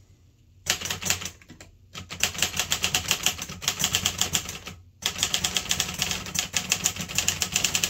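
Typing on a 1964 Olivetti Lettera 32 manual portable typewriter: rapid runs of light keystrokes, typebars clacking against the platen, with a brief break about five seconds in.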